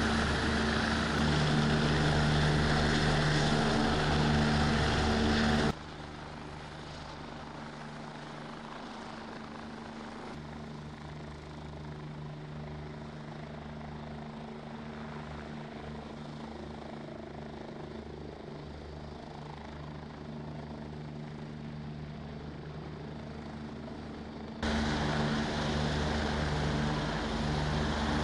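Helicopter rotor and engine running steadily. The sound drops abruptly to a quieter level about six seconds in and comes back loud near the end, as the helicopter hovers with a rescuer on its winch line.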